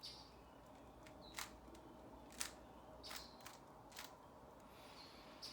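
Rubik's cube being turned by hand, with faint plastic clicks at uneven intervals, about six of them, as the layers snap round.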